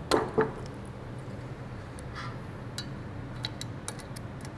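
Metal clanks and light ticks of tools and valve parts being handled while a small-block Chevy cylinder head is stripped down. Two louder ringing clanks come right at the start, then scattered small clicks over a steady low hum.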